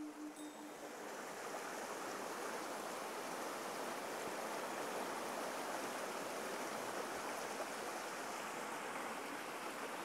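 Shallow stream running over stones: a steady rush of flowing water that fades in over the first couple of seconds.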